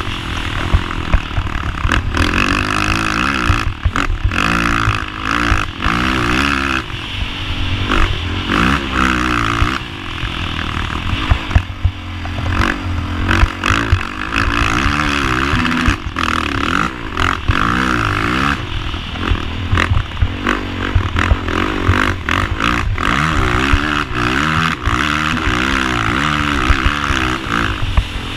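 Honda TRX450ER quad's single-cylinder four-stroke engine revving up and dropping back over and over as it is ridden hard round a motocross track, with sharp clattering knocks throughout.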